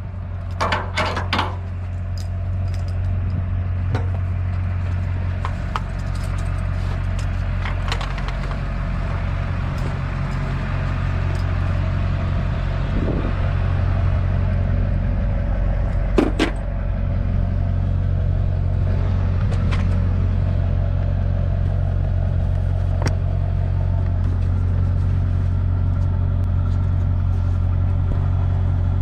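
An engine running steadily with a low, even drone, with a few scattered clicks and knocks over it.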